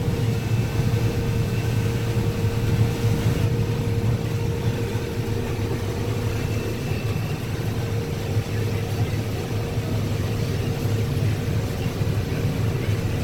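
Combine harvester running steadily while shelling corn: a constant engine drone with a steady whine above it.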